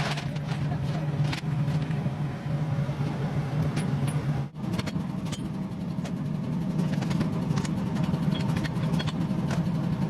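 A machine running with a steady low hum, overlaid by scattered sharp clicks and ticks; it cuts out briefly about halfway through.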